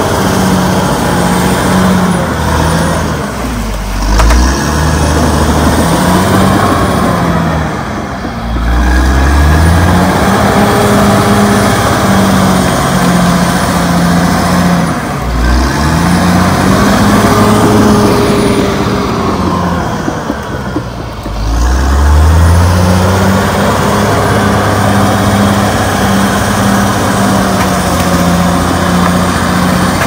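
Caterpillar D6R XL bulldozer's diesel engine running hard as the dozer pushes earth and uprooted trees. Its engine note drops and climbs back up about four times.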